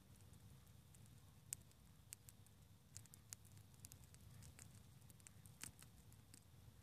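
Faint, irregular sharp clicks and crackles, a few a second at most, over a low steady rumble.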